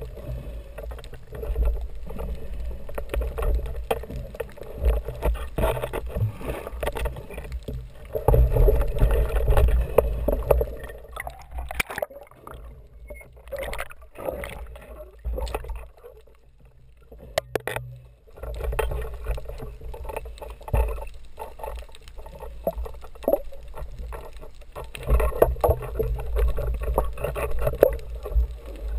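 Muffled underwater noise picked up through a GoPro Hero2's waterproof housing: a low rumble of water moving around the camera, with scattered crackles. It drops quieter for a few seconds midway, where a few sharp clicks stand out.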